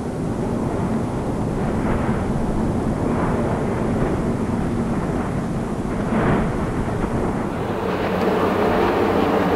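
Lava spouts at Fagradalsfjall bursting up through the crust of a lava lake: a continuous low rumble and churn, with irregular surges of splashing every second or two as the molten rock is thrown up and falls back. The strongest surge comes about six seconds in.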